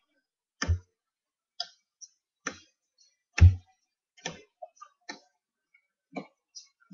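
Trading cards being handled and set down: about ten irregular light clicks and taps, two of them louder with a dull knock.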